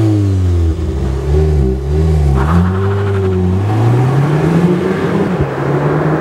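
Audi A1 40 TFSI's 2.0-litre turbocharged four-cylinder pulling away hard from a standstill, its pitch climbing and dipping through quick upshifts of the six-speed S-tronic gearbox. The engine note then grows more distant as the car speeds away.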